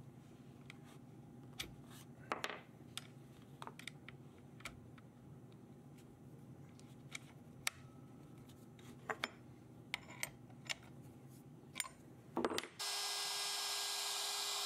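Scattered small clicks and metal taps from changing the bit in a CNC trim router's collet and pressing its spindle lock, over a low hum. About two seconds before the end the router's motor switches on suddenly and runs steadily with a hiss and one steady tone.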